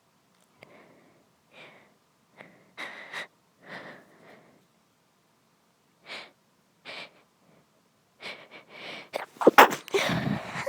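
A woman's sneezing fit: a run of short, quiet bursts of breath and small sneezes, then louder sneezes bunched together near the end, the loudest about nine and a half seconds in.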